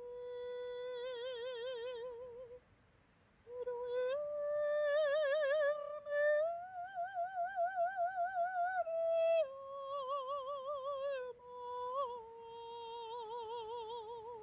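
A woman singing unaccompanied and without words: long held notes with wide vibrato, stepping up in pitch and then back down. There is a short breath gap about three seconds in.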